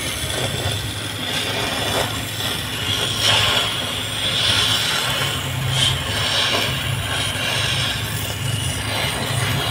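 Gas welding torch flame hissing steadily as it welds the car's underbody metal, with a few brief crackles and a low hum underneath.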